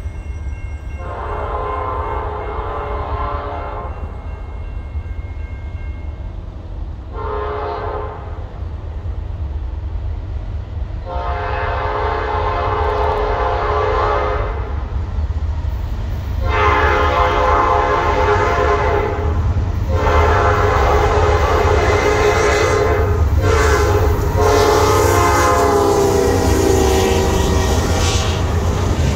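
Diesel freight locomotive's air horn sounding six blasts, long, short, long, then three more long ones close together, over the deep rumble of the train. The last blast drops in pitch as it ends. From about the middle on, the hiss and clatter of freight car wheels on the rails comes in and grows louder as the cars roll past.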